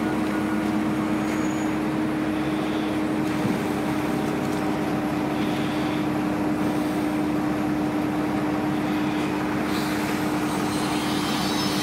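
Crane engine running steadily under load, a constant hum over mechanical noise with no change in pitch.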